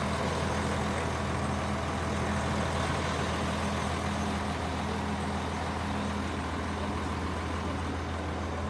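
A vehicle's engine running steadily: a constant low hum under an even rushing noise.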